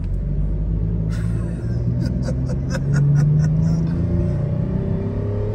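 2013 Toyota 4Runner's engine pulling hard under heavy acceleration while towing a travel trailer near its rated maximum, heard from inside the cabin, its pitch climbing slowly as the revs build. A few sharp ticks sound about two to three seconds in.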